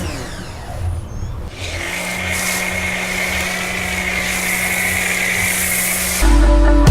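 Sun Joe electric pressure washer kicking in about two seconds in, then running steadily with a constant motor whine and the hiss of spray through the foam cannon. Music starts near the end.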